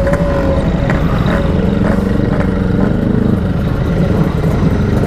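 Yamaha RX-King's 135 cc two-stroke single-cylinder engine running steadily under way, with an aftermarket packing-power exhaust, amid road traffic.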